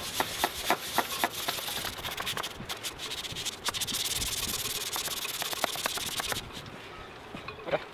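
Sponge scrubbing fibreglass gelcoat with a bicarbonate of soda paste: quick rubbing strokes with a hissy scrape, dropping away about six and a half seconds in.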